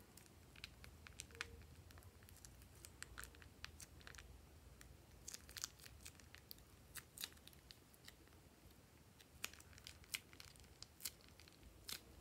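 Faint crinkling of a thin clear plastic piping bag as fingers work and peel it: a scatter of short, sharp crackles, a few louder ones about five to seven seconds in and again near the end.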